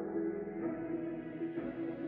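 Soft ambient background music with a steady held note.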